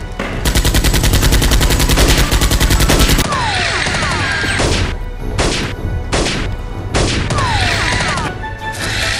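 Gunfire sound effects for toy blasters: a rapid automatic burst of about three seconds, then separate shots with short falling whines.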